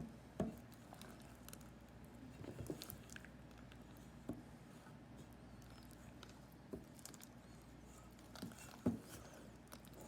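Homemade glue-and-baking-soda slime being mixed and squished by hand: faint, scattered sticky squelches and clicks, the loudest about half a second in and again about nine seconds in.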